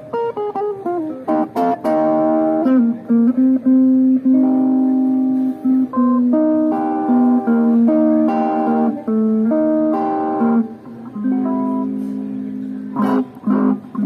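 Guitar playing: a quick descending run of plucked notes, then chords and melody notes, with a few sharp strums near the end.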